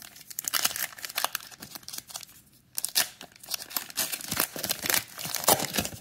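Wrapper of a Panini Mosaic trading-card pack being torn open and crinkled by hand, in two spells with a short pause a little under three seconds in.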